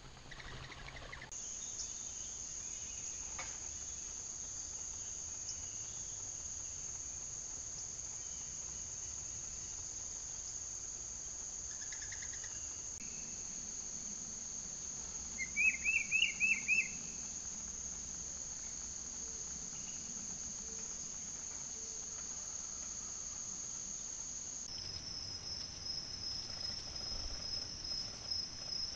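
Summer insects trilling steadily in a high, continuous chorus. About halfway through, a short run of about seven quick chirps rises above it as the loudest sound. Near the end the insect sound changes to a rapidly pulsing trill.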